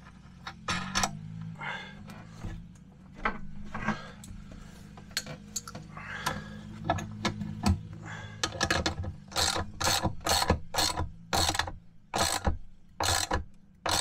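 Small metal clicks and clinks from a washer and nut going onto a seatbelt anchor bolt and being tightened down, scattered at first, then a run of louder clicks about two a second in the second half.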